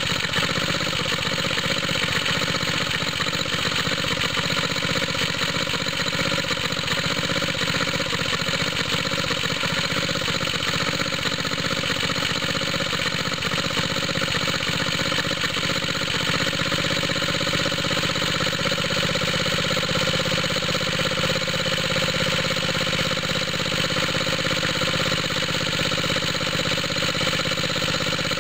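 Small air-cooled single-cylinder engine running steadily, belt-driving a water pump. Its head gasket is leaking at the side of the head, which the owner thinks makes the exhaust note throatier.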